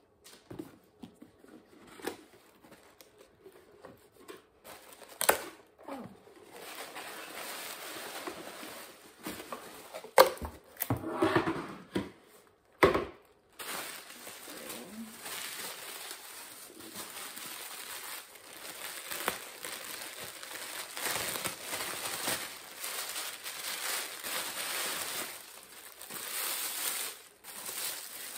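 Paper and plastic wrapping rustling and crinkling as a handbag is pulled from its dust bag and unwrapped from tissue paper, with a few sharp knocks from the cardboard box being handled in the first half.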